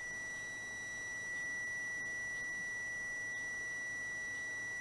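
Digital multimeter's continuity beeper holding one steady high tone, its probes across the switch's alarm relay contacts: the relay has closed now that the switch's CPU is up and running.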